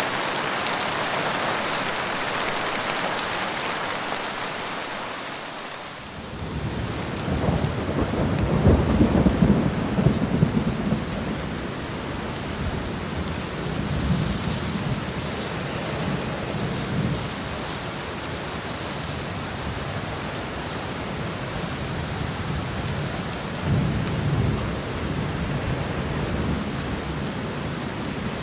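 Steady rain falling, with rolling thunder that begins about six seconds in. The thunder is loudest for the next few seconds, then comes back in weaker rumbles twice more.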